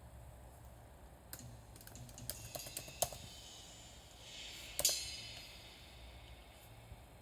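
A MacBook Pro clicking and crackling: a scattered run of sharp clicks for about two seconds, then a rising hiss that ends in one louder crackling burst, with faint ticks before and after.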